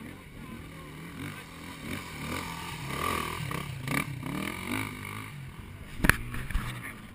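Enduro motorcycle engine revving up and down as the bike climbs a dirt slope, growing louder as it passes close by three to four seconds in, then easing off. A single sharp knock comes about six seconds in.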